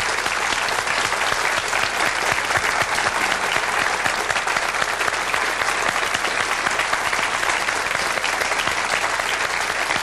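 Studio audience applauding steadily: many hands clapping.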